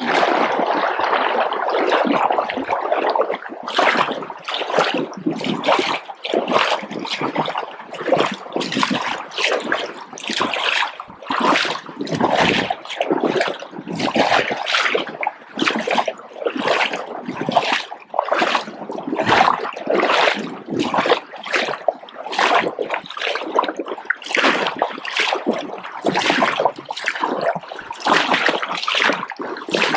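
River water splashing in a steady rhythm, about two splashes a second.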